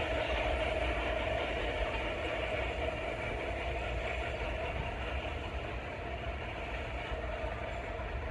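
A New York City subway train running away along the tracks: its steady wheel-on-rail noise slowly fades as it recedes.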